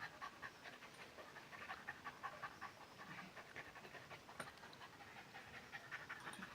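Dog panting faintly in quick, steady breaths.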